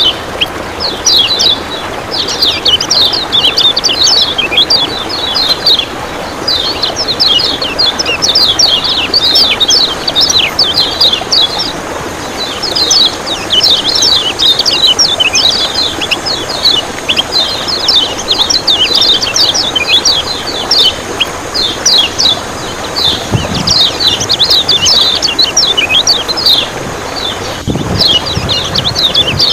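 Kecial kuning (yellow white-eye) singing its fast chattering song: volleys of rapid high chirps in phrases of a few seconds with short breaks, over a steady rush of running water. Two faint low thuds come late on.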